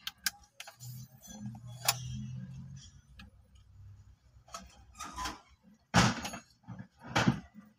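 Clicks and knocks from handling a car stereo head unit and plugging its wiring harness connectors in, with three louder noisy bursts in the last three seconds.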